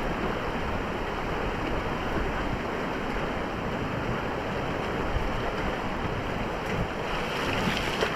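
Beas River whitewater rushing steadily around the raft, with wind buffeting the microphone.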